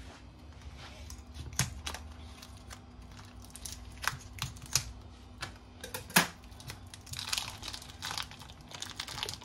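Thin plastic film crinkling and rustling as it is cut and pulled away from a wheel of hard cheese, with a few sharp snips of scissors. The crinkling gets denser near the end.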